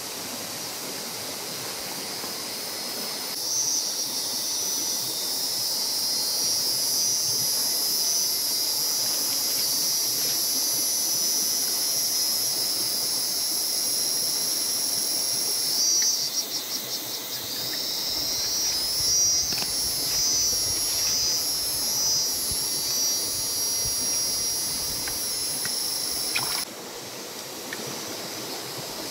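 Loud, high-pitched steady drone of cicadas, starting abruptly a few seconds in and cutting off near the end, with a pulsing, wavering stretch in the middle. A low steady hiss sits under it.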